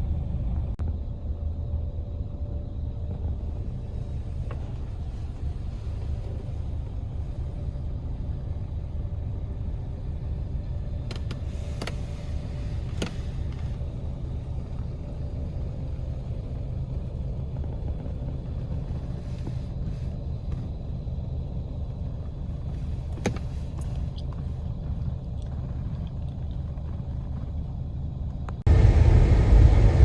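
Steady low rumble of an idling car, with a few faint clicks; near the end it suddenly gets louder.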